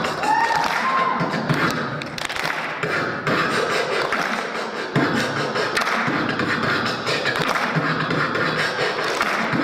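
Dubstep-style beatboxing into a handheld microphone: a steady stream of vocal kick, snare and click sounds with bass, plus a few short pitched tones in the first second.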